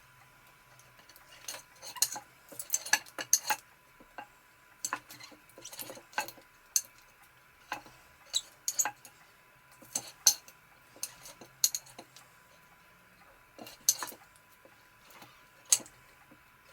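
Kitchen knife cutting through boiled octopus and knocking on the chopping board, in irregular sharp clicks, some in quick clusters of two or three.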